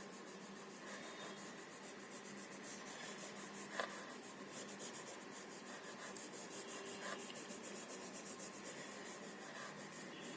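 Faint scratching of colouring strokes on paper, rapid and evenly repeated as a picture is shaded in, with one small tick about four seconds in.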